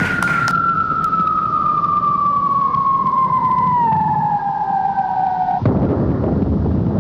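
A single whistle-like tone gliding slowly and steadily down in pitch, like a falling-whistle sound effect. It breaks off suddenly about five and a half seconds in and gives way to a dense, noisy wash of sound.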